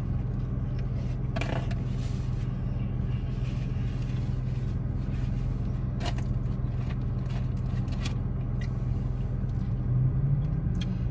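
Steady low hum of an idling car heard from inside the cabin, with scattered clicks and rustles of a paper food wrapper as fried fish is picked apart by hand.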